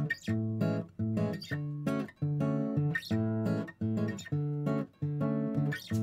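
Background music: acoustic guitar playing chords in a bossa nova style, in short repeated phrases with brief gaps between them.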